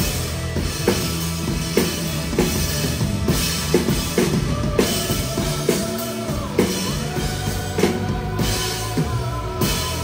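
Live rock band playing, with the drum kit prominent: kick and snare hits landing about once a second under sustained held notes.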